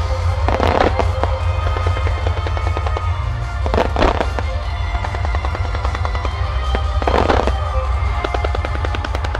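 Fireworks display: a dense run of rapid pops and crackles from firing mines and bursting shells, with a louder rushing burst about every three seconds. Music plays throughout with a steady low rumble beneath.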